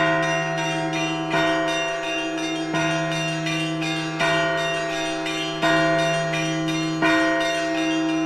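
Russian Orthodox church bells rung by hand in the Moscow tradition: a set of bells sounding together, with a fresh stroke about every second and a half over their continuous ringing.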